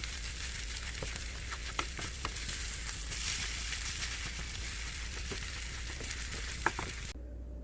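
Food frying in a pan: a steady sizzle with scattered sharp pops, cut off abruptly shortly before the end.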